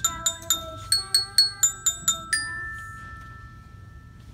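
Small glockenspiel struck with mallets: a quick run of about ten bell-like notes, the last one left ringing and fading away over the next two seconds.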